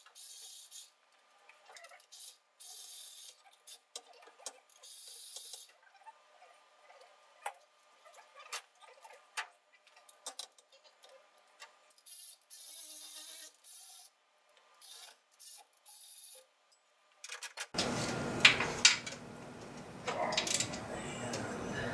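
Hand tools working in an engine bay: scattered light metallic clicks and taps with short bouts of scraping. About eighteen seconds in the sound turns fuller and louder, with sharper clinks.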